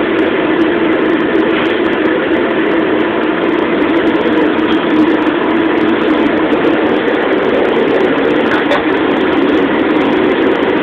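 Commercial gas wok range burner running under a bare carbon steel wok that is being heated for seasoning: a loud, steady rushing noise.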